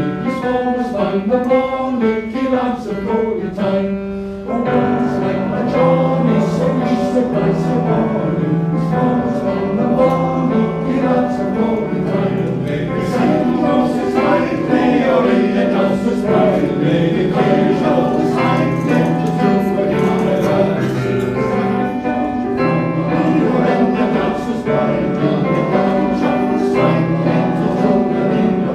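Male voice choir singing in harmony, recorded live in concert. The sound grows fuller and louder about four and a half seconds in.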